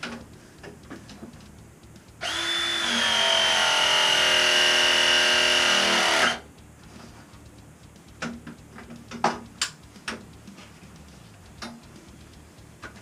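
Ridgid ProPress battery press tool running one pressing cycle of about four seconds, its motor whining steadily as the jaws crimp a copper fitting onto the pipe, then cutting off abruptly. A few light clicks of handling follow.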